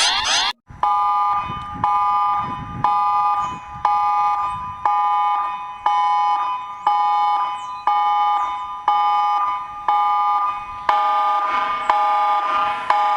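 Emergency alert attention tone: a steady three-note electronic chord beeping about once a second, with a lower fourth note joining near the end. In the first half second a different alarm, a fast repeating rising sweep, cuts off just before it.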